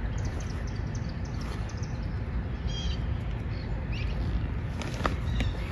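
A few faint bird chirps about halfway through, over a steady low rumble of outdoor background noise, with a couple of light clicks near the end.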